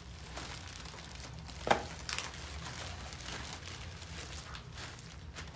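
Plastic zip-top bags crinkling and rustling as laminated cards are handled and slid into them, with one sharp knock a little under two seconds in.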